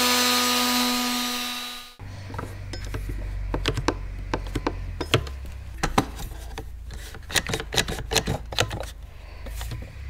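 Electric palm sander running on wood, ending abruptly about two seconds in. Then a string of sharp, irregular clicks as the trigger of a one-handed bar clamp is squeezed to clamp the board down.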